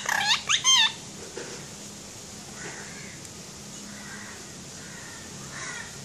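Rose-ringed parakeet calling: three loud calls in quick succession in the first second, each rising then falling in pitch, followed by a few faint, short calls.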